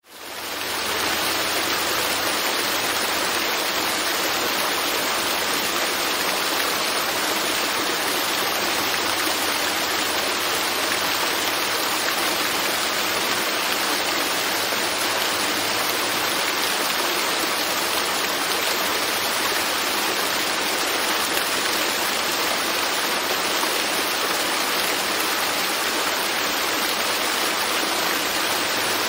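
Waterfall: a steady rush of falling water, fading in over the first second.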